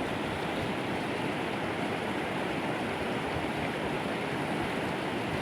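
Creek running with rainwater, a steady rush of flowing water.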